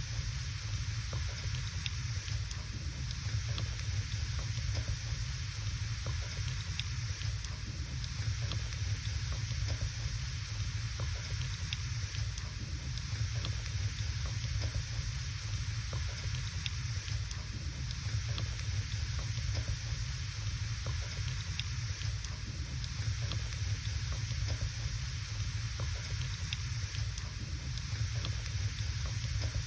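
Wood logs burning in a fireplace: a steady low rumble of flame and a soft hiss, with small irregular crackles and pops scattered throughout.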